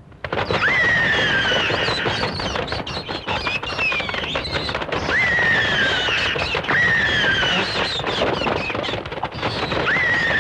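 Film sound effect that starts abruptly: a dense crackling rush with a shrill cry that jumps up and then slides down in pitch. The cry repeats about every second and a half.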